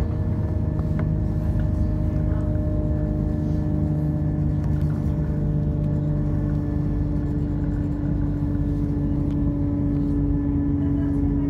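Class 172 Turbostar diesel multiple unit under way, heard from inside the passenger saloon. Its underfloor diesel engine and transmission give a steady drone with a few held tones over a continuous running rumble.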